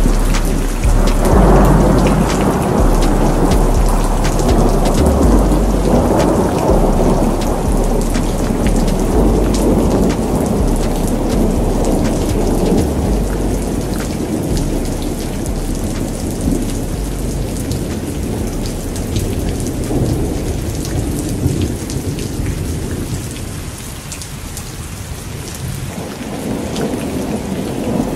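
Thunderstorm: steady heavy rain with long rumbling thunder, loudest in the first few seconds and slowly dying away, then building again near the end.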